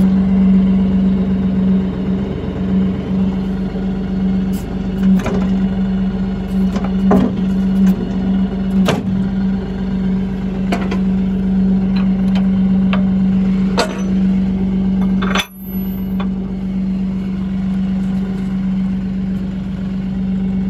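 Bobcat CT4045 compact tractor's diesel engine running steadily at an even pitch, with occasional short knocks and rattles.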